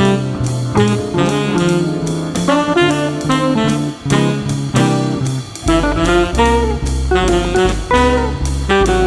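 Background jazz music led by saxophone, with drum kit, and a bass line that comes in strongly a little past halfway.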